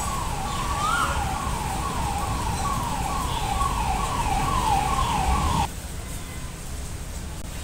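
A siren-like tone sweeping down again and again, about two and a half sweeps a second, over a steady low rumble. It cuts off suddenly about three-quarters of the way through.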